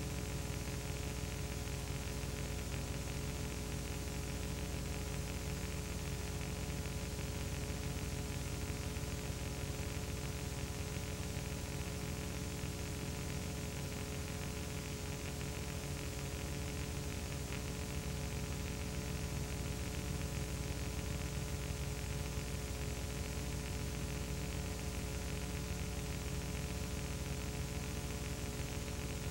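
Steady electrical hum, several held tones with even hiss over them and nothing else: the noise floor of a silent home-movie transfer.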